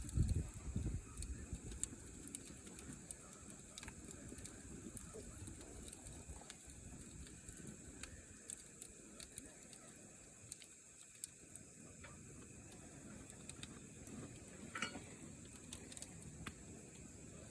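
Wood fire burning quietly, with scattered faint crackles and pops over a steady high hiss. A few louder low thumps come right at the start.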